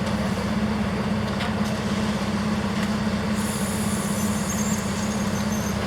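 Diesel engine of a Class 642 Desiro railcar running at a steady low hum, with no change in speed or pitch.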